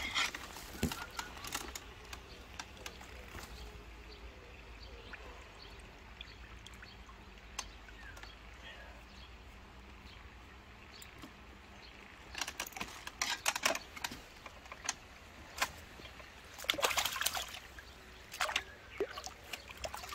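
Water splashing and dripping at a fishing landing net as a landed crucian carp is handled over it, in short bursts near the start and again in clusters in the second half.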